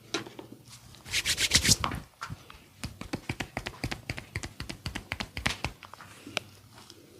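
Hands tapping and patting on a body during a massage. A quick burst of slaps comes about a second in, then a long run of faster, lighter taps that stops shortly before the end.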